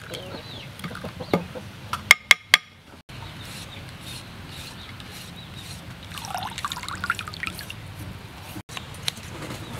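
Water sloshing and trickling as a hand swishes rice vermicelli in a bowl of water and lifts it out dripping. Three sharp clicks come about two seconds in.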